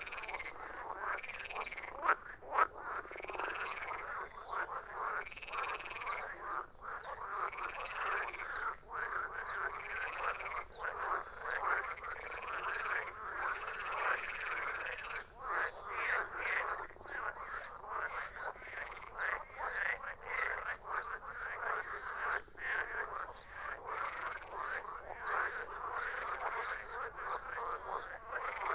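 Chorus of many frogs croaking over one another, with a call that rises and falls repeating every second or two, and two sharp louder croaks about two seconds in.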